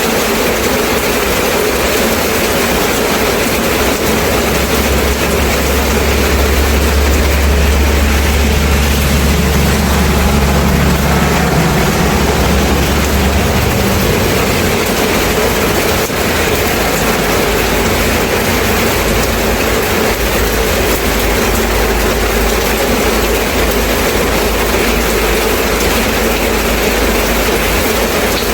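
Steady rain, a dense even hiss. A low rumble runs underneath from about four seconds in and stops abruptly about halfway through.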